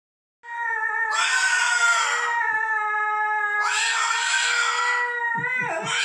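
Moluccan cockatoo calling in one long, steady, held tone that starts about half a second in, twice turning harsher and screechier, then wobbling and dipping in pitch near the end.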